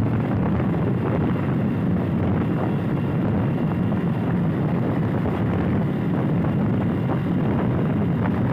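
Steady rumble of a moving vehicle's road and wind noise, even in level throughout, with wind on the microphone.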